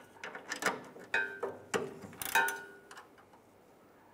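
Bolts, lock washers and nuts clinking against a steel mounting bracket as they are fitted by hand: about six sharp metallic clinks, each with a short ring, over the first three seconds.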